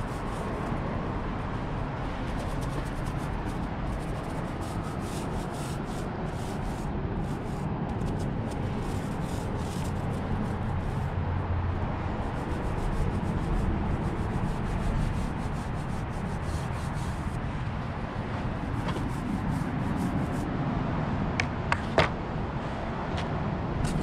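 Small paint roller rolling paint onto a car's body panel, a soft rubbing swish with each stroke over a steady low rumble. Near the end come a couple of sharp clicks.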